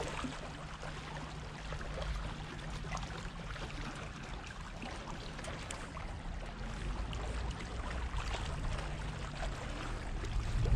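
Small waves washing and trickling over shoreline rocks: a steady, noisy wash with a low rumble underneath.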